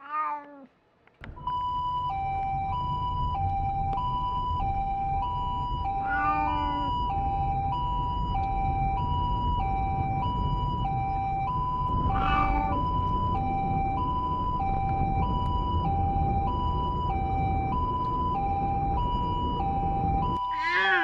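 An elderly cat moaning from inside a pet carrier, crying out about every six seconds while ill after a seizure. Under the cries are the low rumble of a moving car, starting about a second in, and a steady hi-lo two-tone Japanese ambulance siren alternating between a high note and a low note.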